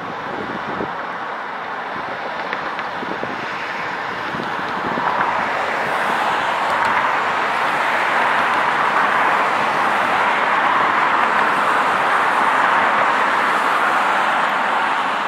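Fire apparatus standing with engines running, a steady noise with no siren that grows louder about five seconds in.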